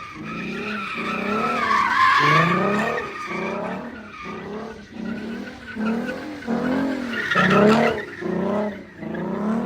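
A car doing a burnout: tires squealing against the pavement while the engine is revved hard over and over, its pitch rising and falling in quick repeated surges.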